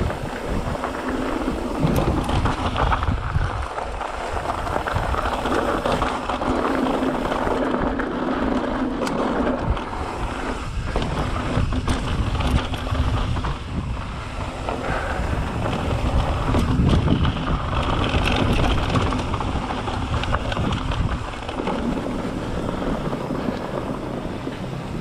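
Wind buffeting a GoPro's microphone as a mountain bike rolls fast down a dry dirt trail, with steady tyre noise on dirt and gravel and scattered rattles and knocks from the bike over bumps.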